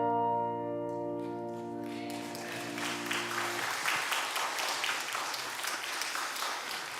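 The held final chord of a piano-and-strings accompaniment rings on and stops about three and a half seconds in. Congregation applause rises about two seconds in and carries on after it.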